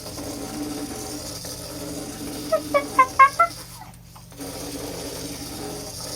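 Robo Alive toy cockroach's small motor and legs running with a steady buzzing rattle as it scuttles across a surface, dropping out briefly about four seconds in. Partway through, a child gives about five short, high-pitched squeals.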